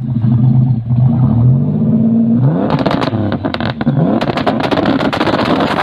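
Car engine running loud and revving, its pitch rising and falling several times, with a run of sharp crackles from about two and a half seconds in.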